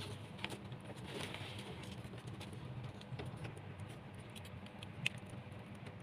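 Water trickling and dripping down the seashell tiers of a small tabletop fountain into its basin, with scattered drips and one sharper drip about five seconds in, over a low steady hum.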